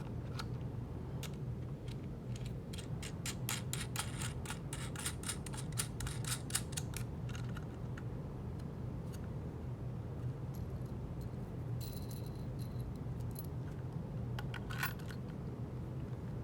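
Quick run of small metallic clicks and rattles as a wing nut is turned along a threaded carriage bolt set in an acrylic keyboard plate, thinning out after the first half, with a brief high squeak near the end.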